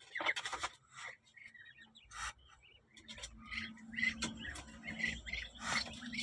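Newly hatched Muscovy ducklings peeping: many short, high calls in quick, irregular succession. A faint low hum comes in about three seconds in.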